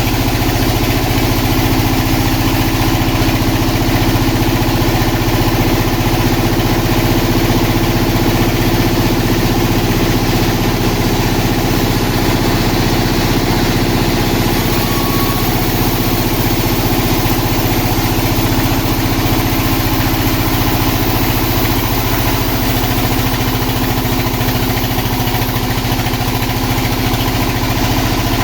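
Engine-driven sawmill running steadily, a continuous loud engine drone with no pauses.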